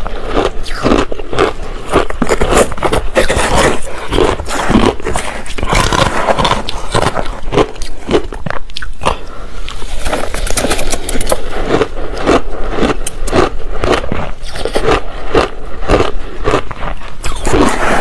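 Crushed ice with passion fruit pulp being bitten and chewed: dense, irregular crunching, close to a clip-on microphone, with a short lull about nine seconds in.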